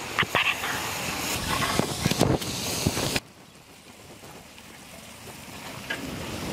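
Ginger-garlic paste and tomatoes frying in oil and ghee in a large cooking pot: a steady sizzling hiss with scattered knocks, dropping suddenly to a quieter sizzle about three seconds in.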